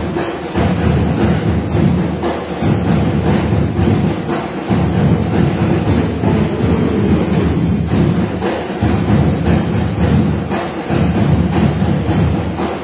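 School marching band playing live: brass led by a sousaphone and trumpets, with drums striking a repeated beat underneath.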